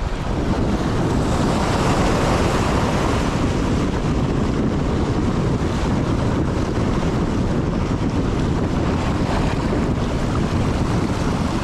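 Sea waves washing steadily against a rocky shore, mixed with wind buffeting the microphone.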